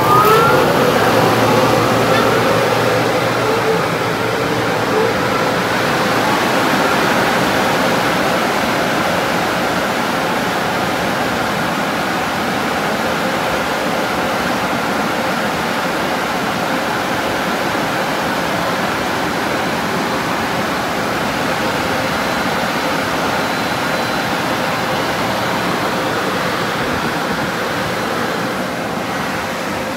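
D&S car wash dryer blowers running at full speed: a loud, steady rush of air whose motor whine finishes rising in the first half-second as they come up to speed.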